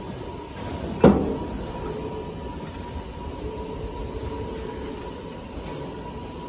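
One loud metal clank about a second in, with a short ring, as a heavy steel machine cover hung from a chain hoist knocks against the steel frame while it is being fitted. Under it runs a steady factory machinery hum with a faint constant whine.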